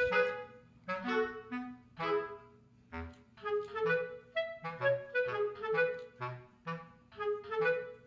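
Background music: a light, bouncy melody of short separate notes over a repeating bass line.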